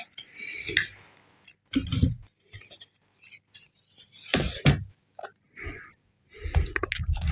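Close-miked handling of phone packaging: a short paper rustle, then irregular light clicks, taps and rustles as a coiled white USB-C to USB-C cable is taken out and handled, with a few dull bumps near the end.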